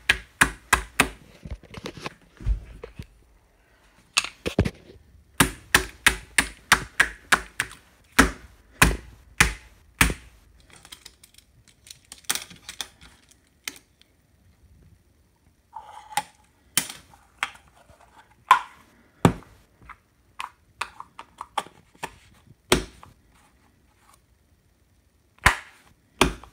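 Sharp taps and slaps of slime and a plastic utensil against a hard countertop, in quick runs of several a second with pauses between.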